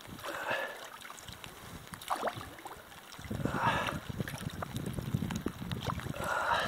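A long wooden pole used as a paddle dipping and pulling through river water, four splashy strokes a couple of seconds apart. Wind rumbles on the microphone from about halfway.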